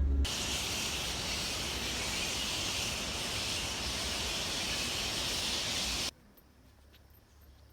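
A steady, even outdoor hiss, strongest in the upper range, that starts just after the beginning and cuts off suddenly about six seconds in, leaving only faint background.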